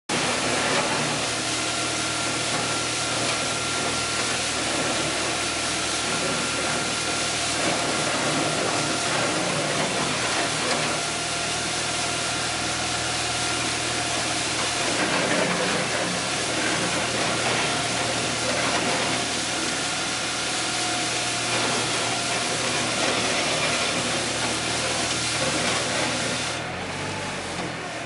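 Skid steer loader running with a closed sweeper attachment, its engine and hydraulics driving the brush over concrete: a steady loud hiss with a steady whine on top. The hiss drops away suddenly about a second and a half before the end.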